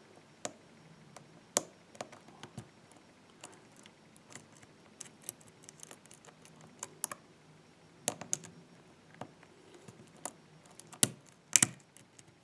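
Small irregular metallic clicks and light scrapes from a hook pick lifting the pins of an old Ruko six-pin oval cylinder under tension from a pry bar. The clicks are the pins giving feedback as they are pushed and set. Two sharper clicks come about a second before the end.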